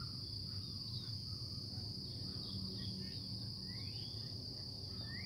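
Insects trilling in one steady high-pitched band, with a few short rising chirps over it.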